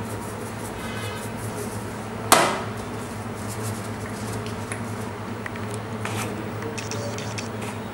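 A single sharp metallic clank with a brief ring about two seconds in, as a stainless-steel kitchen utensil strikes the counter, among lighter clicks of utensils on the board. A steady low hum runs underneath.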